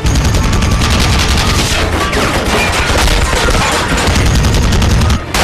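.50-calibre heavy machine gun firing a long sustained burst of rapid, deep shots, broken off briefly near the end.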